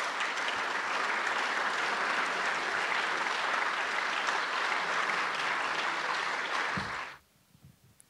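Audience applauding steadily at the end of a talk, then cutting off suddenly about seven seconds in.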